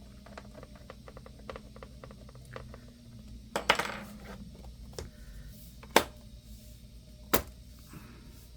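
Small metal screws and tools clicking and tapping during laptop screen reassembly: a run of faint quick clicks, a louder short clatter about three and a half seconds in, then a few sharp single knocks.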